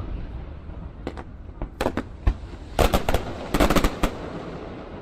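Fireworks going off: a run of sharp bangs, several in quick clusters about three to four seconds in, over a steady low rumble and crackle.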